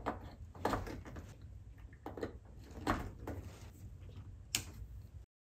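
Power plugs being pushed into the outlets of a CNC machine's power box and their cables handled: a handful of plastic clicks and knocks, the sharpest near the end, over a faint low hum.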